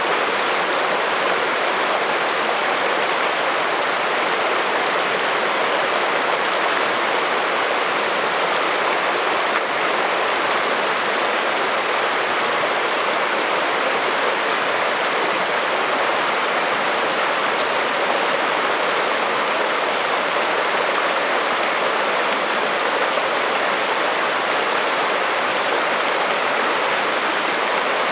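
Shallow rocky mountain creek flowing over cobbles and small riffles, a steady rushing water sound.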